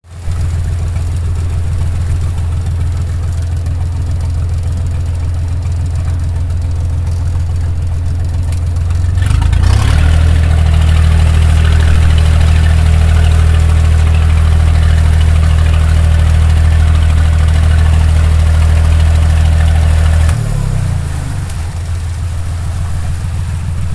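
Boat engine running steadily, its revs stepping up about nine or ten seconds in and dropping back to a lower run about twenty seconds in.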